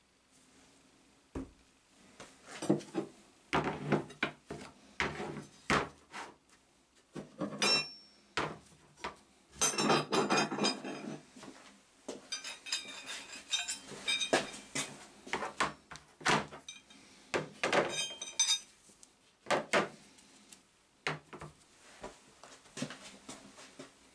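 Old rusty steel files laid into plastic trays on a wooden bench, with bottles and trays set down around them: an irregular series of knocks and clatter with some metallic clinks.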